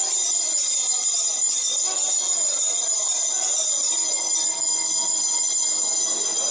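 A bell ringing rapidly and without a break, a steady metallic jangle, over a murmur of voices in a large hall.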